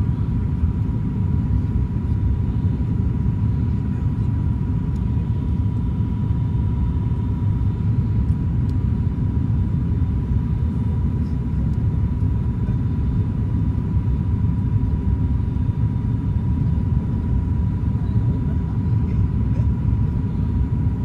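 Steady cabin rumble of an ATR turboprop airliner's engines and propellers in flight on approach, with a thin high tone held constant above it.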